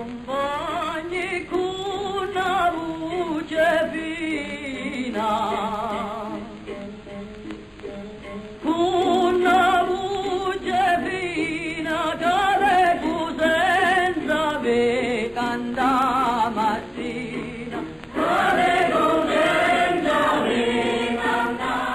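A group of voices singing together in held, wavering notes. The singing grows louder as new phrases begin about nine and eighteen seconds in.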